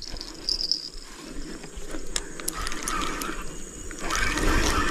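Insects chirring with a steady high buzz, fading after the first second, with scattered faint clicks; about four seconds in a louder noise with a faint whine sets in.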